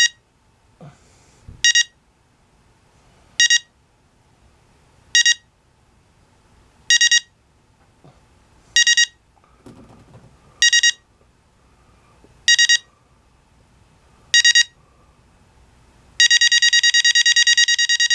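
Digital alarm clock beeping: short high-pitched double beeps about every two seconds, then, about two seconds before the end, a switch to a fast unbroken run of beeps as the alarm steps up.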